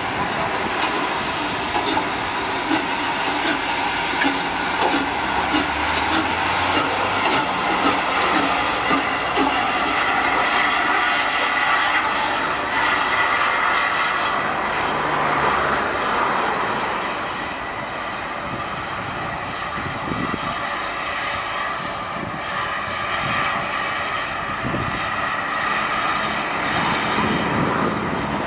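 4-8-2 steam locomotive running slowly along yard track: a steady hiss of steam with clicks and clanks from the wheels and running gear over the rails.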